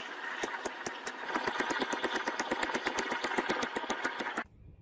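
A machine running with rapid, evenly spaced knocks over a steady hiss. The knocks speed up about a second in, and the sound cuts off suddenly near the end.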